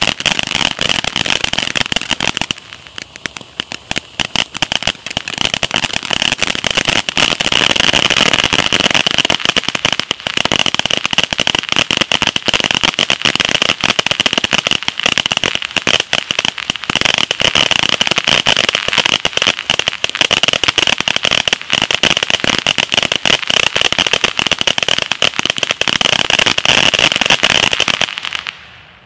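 A "Loud and Clear" cylinder fountain firework spraying sparks, with a steady hiss under dense crackling. The sound drops for a few seconds near the start, builds back to a loud crackle, and dies away just before the end.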